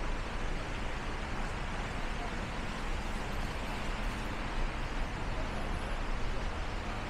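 Steady rain with city street traffic: an even hiss over a low rumble, with no single event standing out.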